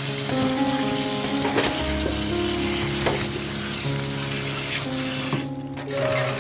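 Tap water running and splashing onto sliced bananas in a metal colander as hands rinse them, stopping about five and a half seconds in. Background music with held notes plays throughout.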